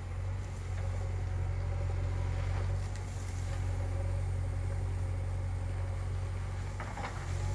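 Diesel engine of a JCB 3DX backhoe loader running steadily at an even speed, a constant low hum.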